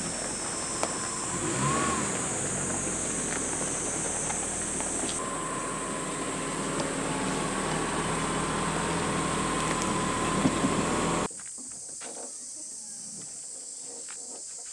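Steady motor-vehicle noise with a high, steady drone over it, which cuts off abruptly about eleven seconds in, leaving a quieter ambience with a few light clicks.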